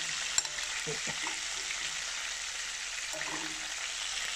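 Pieces of pike frying in hot oil in a stainless steel pan, sizzling steadily, with one sharp click about half a second in.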